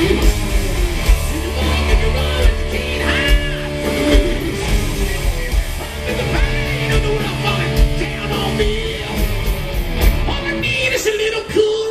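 Hard rock band playing live through a loud PA: distorted electric guitars, drum kit and bass, with singing at times.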